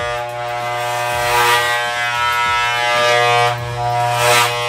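Corded electric hair clippers buzzing steadily, with briefly louder, brighter stretches about a second and a half in and near the end.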